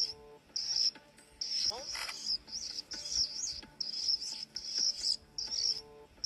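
Cricket chirping: short high-pitched trills repeating roughly twice a second. A brief rising whistle comes nearly two seconds in.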